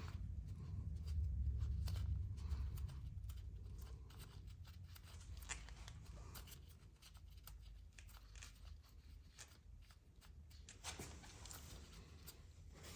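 Light scattered clicks and rubbing as small 8 mm bolts are turned out by hand from a Honda Rebel 1100 DCT's transmission filter cover, with a low rumble of handling in the first few seconds.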